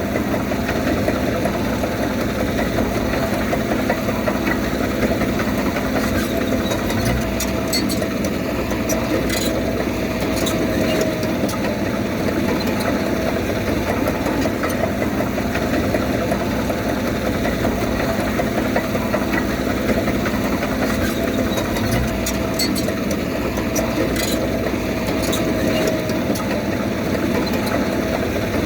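Bulldozer's diesel engine running steadily, with a few faint metallic clinks.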